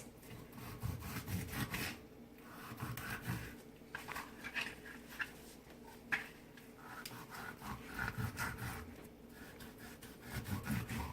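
A dull kitchen knife sawing and scraping through the tough skin of a whole pompano as it scores diagonal cuts, in uneven strokes. The knife is not very sharp, so the cutting goes hard.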